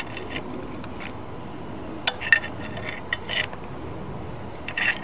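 A steel valve seat wrench clinking and grating against the brass seat and cast body of an old American Standard tub valve as it is turned to work the seat loose. The sound comes as short metallic clicks in clusters, loudest about two seconds in, again around three and a half seconds, and near the end.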